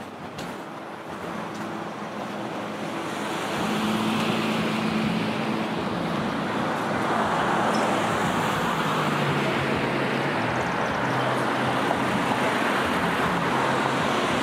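Road traffic: a motor vehicle's engine and tyre noise, growing louder about three and a half seconds in and staying loud.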